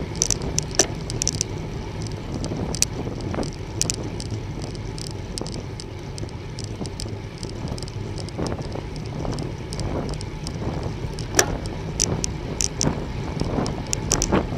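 Bicycle riding on a road: steady wind and tyre noise, with irregular sharp clicks and rattles from the bike.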